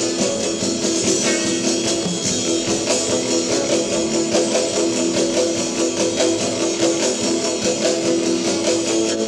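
1959 instrumental rock and roll record: electric guitar strumming over a drum kit's steady beat, with one note held throughout.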